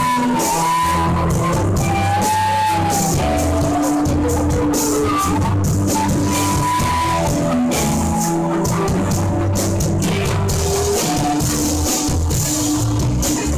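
Live rock jam band playing: electric guitars, synthesizer keyboard and drums. A held, sliding melody line rides over a steady bass line and constant cymbals.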